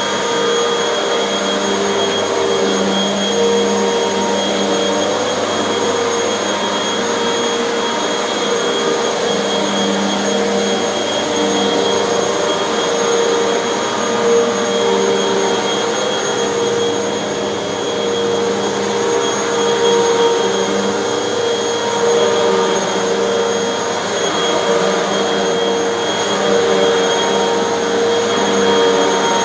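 Hoover bagless vacuum cleaner running continuously on carpet, a steady motor whine over airflow noise with small rises and falls in level.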